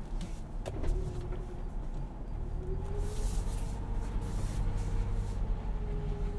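Ford Bronco's 2.7-litre V6 and drivetrain running at low speed in four-wheel-drive low on a muddy trail, heard from inside the cabin: a steady low rumble with a wavering mid-pitched whine. A sharp knock comes just under a second in, and there is brief hissing around the middle.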